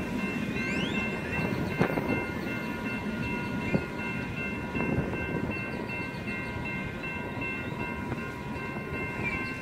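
Union Pacific freight train of boxcars and tank cars rolling through, a steady rumble of the cars on the rails with several high ringing tones held steadily over it.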